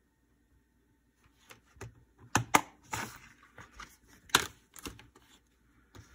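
Plastic Blu-ray cases being handled: a case snapped shut and cases knocked and shifted on a wooden table. A run of sharp plastic clicks and knocks starts about a second in, the loudest two of them coming close together and another a couple of seconds later.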